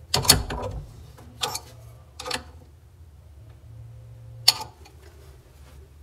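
Metal wrench tightening a braided supply hose's nut onto an angle stop valve: four separate metallic clicks, the loudest about a quarter second in and again about four and a half seconds in.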